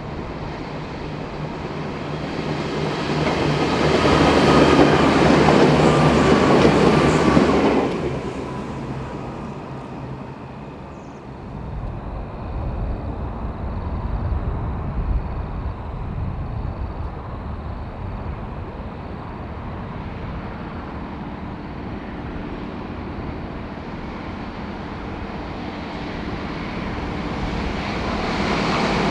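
A V/Line VLocity diesel railcar set passes at speed, its engine and wheel noise building to a loud peak with a faint falling whine, then dropping off sharply about eight seconds in. Then an XPT train's diesel power car approaches from a distance, its engine and rail noise growing steadily louder toward the end.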